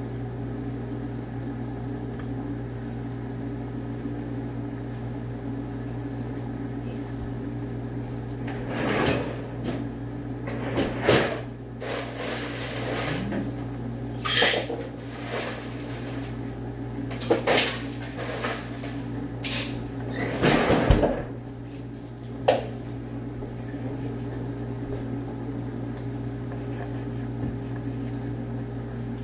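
Kitchen clatter over a steady low hum: a run of knocks, bumps and clinks through the middle of the stretch, the longest and loudest about two-thirds of the way in, as things are moved and handled at the counter and stove.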